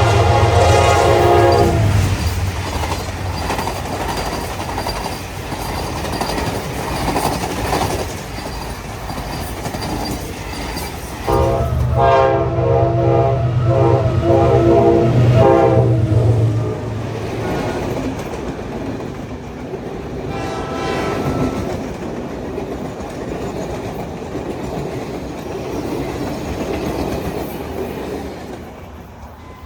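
Train locomotive horn blasting over the rumble and rail clatter of a passing train. There is a short blast at the start, a longer blast of about five seconds near the middle, and a fainter one soon after.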